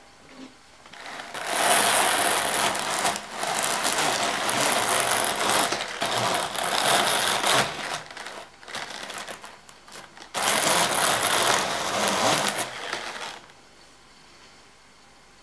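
Hand-cranked Tom Walther 'Rudy' drum carder turning, its needled card cloth whirring as the drums comb fibre. It starts about a second in, eases off briefly about ten seconds in, and stops near the end.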